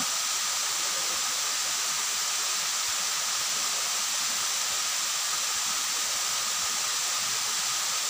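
Steady rushing of a waterfall pouring down a rock face into a pool, an even hiss that holds at the same level throughout, with a faint steady tone above it.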